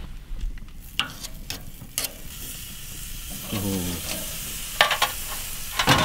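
Marinated steaks sizzling on the hot grates of a gas grill, the sizzle building after the first couple of seconds. There are a few sharp clicks of metal tongs against the grates near the start.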